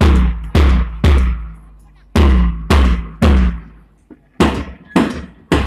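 Bass drum beating time for a march-past: three heavy beats about half a second apart, then a one-beat rest, repeating.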